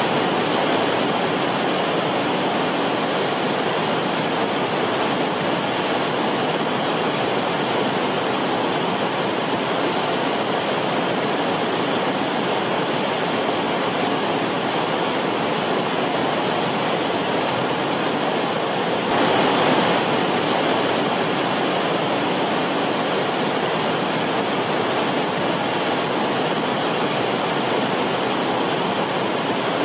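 Forest stream running, a steady even rush of water, with a brief louder surge about two-thirds of the way through.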